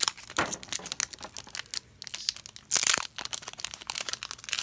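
Foil wrapper of a Pokémon TCG booster pack crinkling and tearing as it is pulled open by hand: a run of crackles, with a louder stretch about three seconds in.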